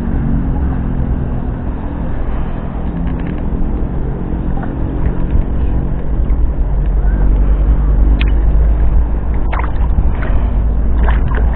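Wind buffeting the microphone as a heavy low rumble that strengthens after about six seconds, over a steady engine hum that fades in the first few seconds. A few sharp clicks near the end.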